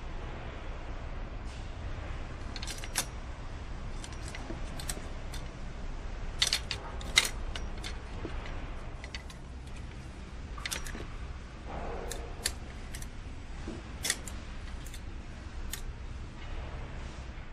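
Sharp metallic clicks and clinks of motorcycle parts and tools being handled during assembly, scattered irregularly and loudest about seven seconds in, over a steady low factory hum.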